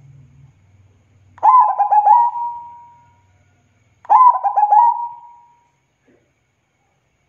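Zebra dove (perkutut) cooing: two song phrases, each a quick run of stuttering coos that ends in a drawn-out note, the first about a second and a half in and the second about four seconds in.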